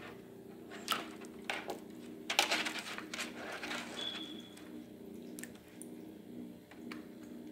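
Hands handling small pieces of egg on a sheet of paper over a turtle's water tub: light rustling and scattered taps, busiest about two and a half seconds in, over a steady low hum.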